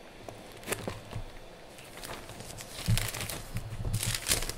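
Paper pages rustling and crinkling as they are turned, in soft scattered bursts that grow busier near the end.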